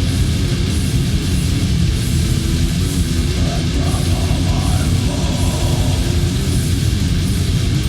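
War metal: heavily distorted guitars over dense, fast drumming, played at a steady, unbroken loudness.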